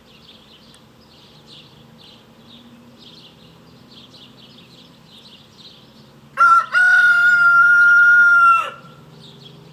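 Rooster crowing once about six seconds in: a single loud call held fairly level for about two seconds. Faint high chirping runs underneath.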